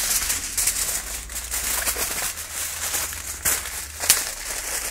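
A sheet of aluminium foil being handled and crinkled, with many small crackles and two sharper crackles about three and a half and four seconds in, the second the loudest.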